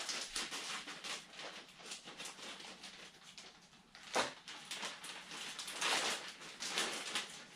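Scissors snipping through a plastic bag and the thin plastic crinkling and rustling as it is pulled open, with a sharp knock about four seconds in.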